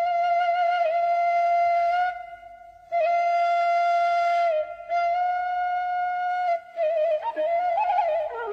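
Background music led by a flute playing a slow melody of long held notes with a slight waver in pitch. The tune breaks off about two seconds in, comes back about a second later, and has shorter pauses near the end.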